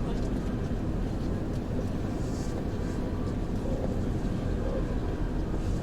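Steady low rumble of a moving vehicle, road and engine noise heard from inside the cabin.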